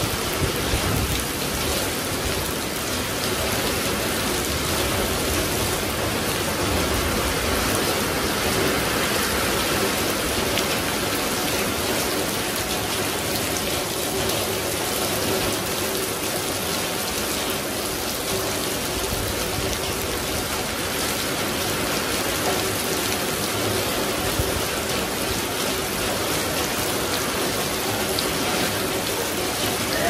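Heavy rain pouring steadily onto a flooded concrete yard and leafy plants.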